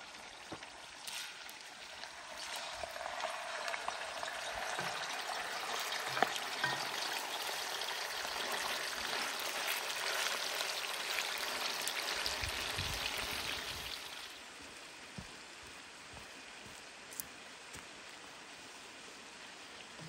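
Beef cubes frying in hot oil in a wok: a steady sizzle that swells as more meat goes in and eases off about two thirds of the way through, with a few sharp clicks from the meat and wooden spatula.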